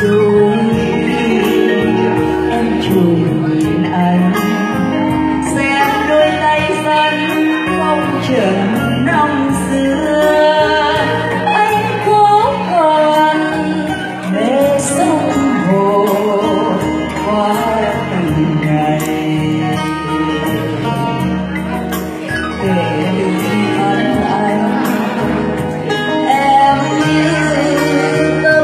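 A woman singing a Vietnamese song live into a microphone, accompanied by acoustic guitar and electronic keyboard.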